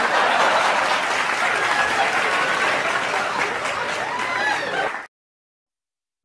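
Applause with crowd noise, a dense steady clatter of clapping, cutting off suddenly about five seconds in.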